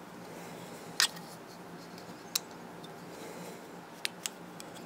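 Short sharp mechanical clicks from a Spyderco Gayle Bradley folding knife being handled: four in all, the loudest about a second in and two close together near the end.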